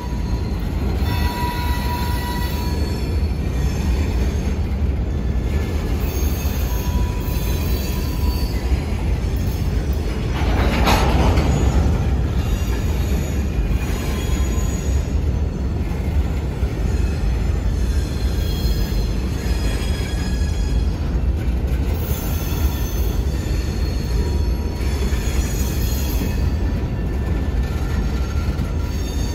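Freight train's coal hopper cars rolling past on steel rails with a steady low rumble, the wheels squealing now and then in thin high tones. About eleven seconds in, a louder burst of noise swells for a second or so.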